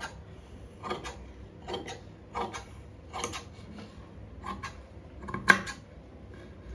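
Large tailor's shears cutting through folded cloth: a series of short snips, roughly one a second, one sharper than the rest near the end.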